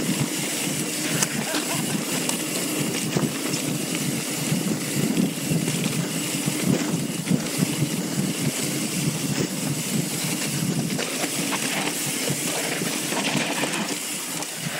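Wind rushing over the microphone of a camera riding on a mountain bike, with uneven buffeting and many short knocks and rattles from the bike.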